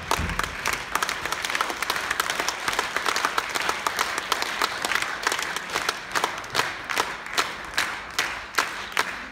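Concert audience applauding, many hands clapping at once, thinning out near the end.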